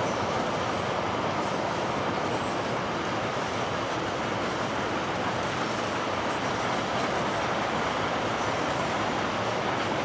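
Empty narrow-gauge grain hopper wagons rolling past, a steady wheel-on-rail noise with no break.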